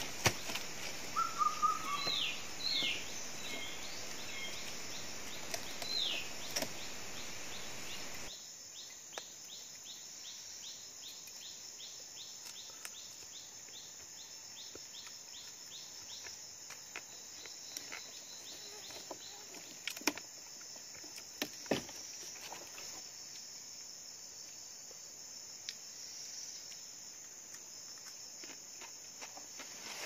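Rainforest insects buzzing steadily at a high pitch. Birds give a few short downward-sweeping calls in the first several seconds. After an abrupt change of ambience about eight seconds in, an insect chirps in a quick regular pulse, and a few sharp knocks come near the end.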